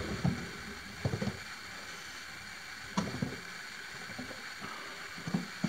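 Quiet room tone broken by a few soft, short taps and rustles.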